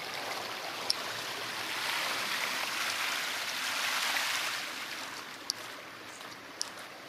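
Shallow water rushing and splashing steadily, churned by a dense shoal of spawning bleak. It swells for a couple of seconds midway, then fades, with a few faint clicks.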